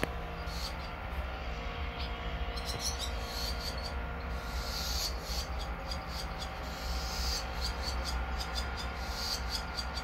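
Swallow twittering in short clusters of high, quick chirps, about three, five, seven and nine and a half seconds in, over a steady low outdoor rumble and faint hum.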